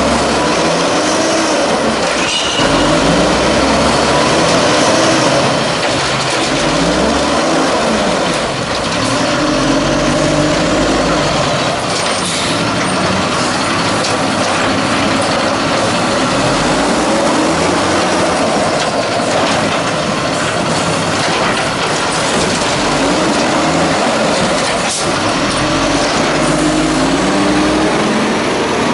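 LNG-powered 1994 WhiteGMC WX-64 garbage truck's engine, its revs rising and falling over and over while the hydraulic side-loader arm works the carts. A few metallic knocks come through as it runs.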